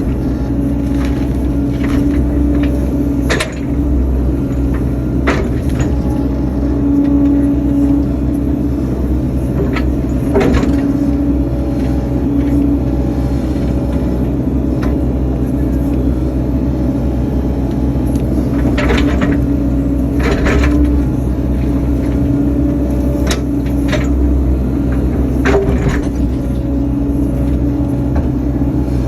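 Excavator's diesel engine running steadily under load, heard from inside the cab, with scattered sharp cracks and knocks as the machine works a stump.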